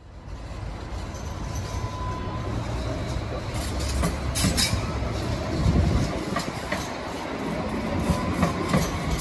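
Alstom Citadis 305 light rail tram passing, its running rumble building and then easing, with a few sharp wheel clicks over the track about four seconds in.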